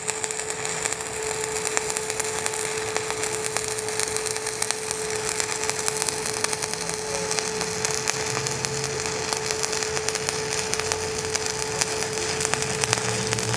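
Stick (SMAW) welding arc crackling steadily as the electrode runs an uphill pass on a vertical (3G) open-root joint. A faint steady hum runs beneath the crackle.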